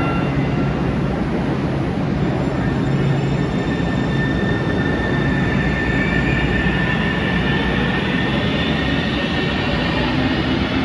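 Sound Transit Link light rail train moving through an underground station over a steady rumble. Its electric motor whine climbs in pitch from about the middle onward as the train gathers speed.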